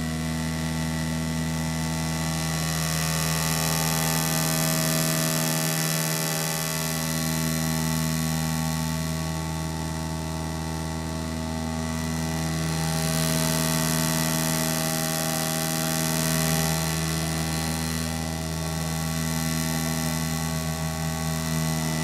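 Bombardier Dash 8-100 turboprop engine and propeller heard from inside the cabin, a steady drone of several held tones over a rushing hiss of airflow that swells and fades every few seconds.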